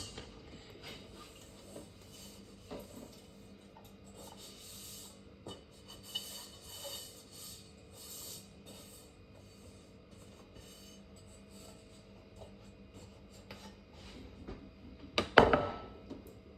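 Faint rubbing and scraping with scattered small knocks, as of things being handled, then a louder clatter of two quick knocks about a second before the end.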